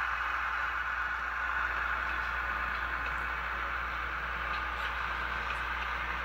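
Diesel prime mover sound from a SoundTraxx Tsunami 2 decoder, playing through the small speaker of an HO-scale GE 70-ton switcher as it rolls slowly along the track. The sound runs steadily, with a few faint ticks.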